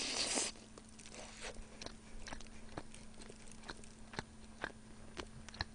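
Close-miked chewing of a bone-in piece of soy-braised chicken: a short rushing noise as she bites into it in the first half-second, then soft, scattered wet mouth clicks and smacks as she chews.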